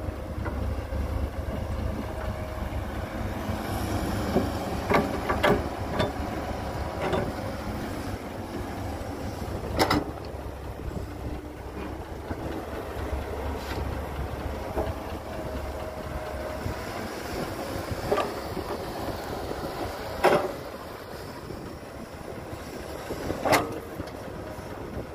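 Cat 312B hydraulic excavator's diesel engine running steadily under load as it digs soil and loads a dump truck, with about half a dozen sharp clanks from the bucket and boom. The low rumble eases somewhat about two-thirds of the way through.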